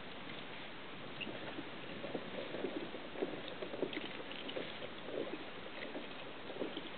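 Small waves lapping against a kayak's hull in irregular soft slaps, a few a second, over a steady hiss.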